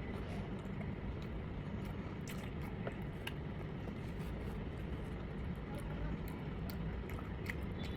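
A person eating: scattered small clicks and mouth sounds of chewing, with utensils on food, over a steady low rumble of background noise.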